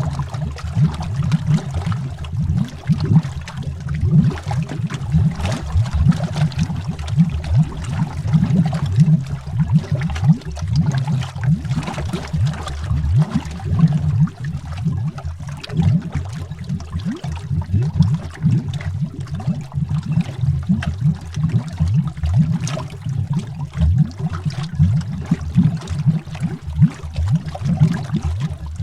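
Underwater recording of streams of air bubbles rising and bubbling: a constant low rumble under many small irregular pops.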